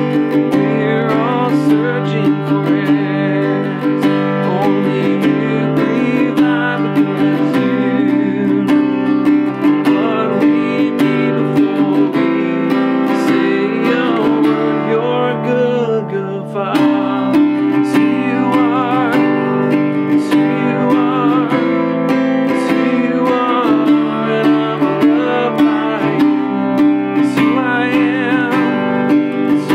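Acoustic guitar strummed in one steady, repeating pattern, with a man singing over it.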